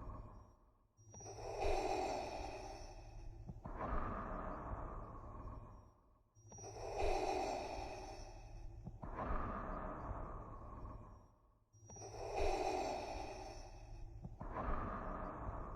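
Darth Vader's mechanical respirator breathing: slow, regular hissing inhales and exhales through the mask, about three full breaths with a brief pause between each, over a faint low hum.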